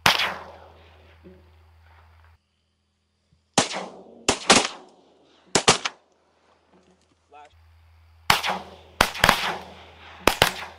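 A volley of shotgun blasts from a line of duck hunters, about eleven shots in two quick clusters, each shot followed by a short fading echo.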